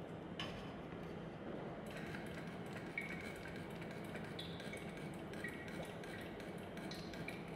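Faint small metallic clinks and handling noises as a hand works at the manual gearbox's fill hole during an oil fill, over a steady low hum.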